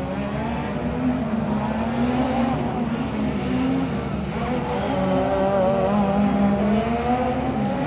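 Rally car engine revving hard through a tight circuit, its pitch rising and falling with throttle and gear changes, with a long climb in pitch in the second half.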